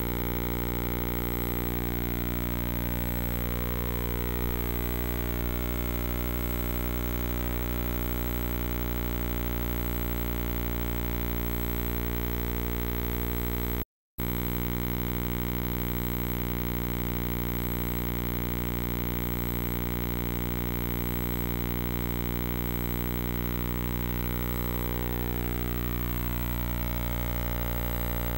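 Steady electrical buzz with many overtones, unchanging in pitch, that cuts out for an instant about halfway through: hum on the audio track of a silent game-film transfer.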